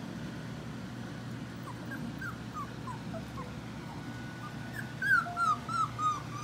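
Labradoodle puppies whimpering: a string of short, high whines that each fall in pitch, then a louder run of four or five near the end.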